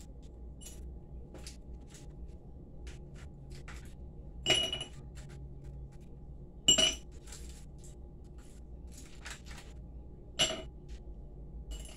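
Kitchenware clinking and tapping on a counter: small scattered clicks, with three louder ringing clinks, the first about four and a half seconds in and the others roughly two and four seconds later.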